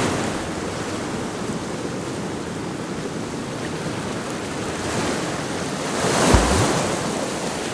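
Sea surf washing against rocks, a steady rushing noise with wind on the microphone, swelling louder about six seconds in with a brief low thump.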